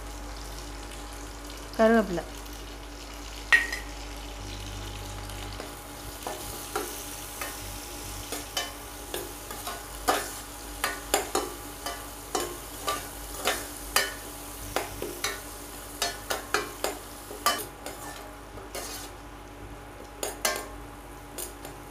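Garlic, tomato and onion frying in oil in a stainless steel kadai, with a steady sizzle. A steel ladle stirs and scrapes against the pan, giving a ringing clank early on and then frequent sharp clicks, one or two a second.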